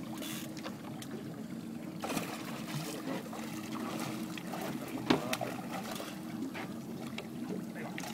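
Boat engine idling with a steady low hum, while water splashes against the hull as a hooked fish thrashes at the surface; a sharp knock about five seconds in.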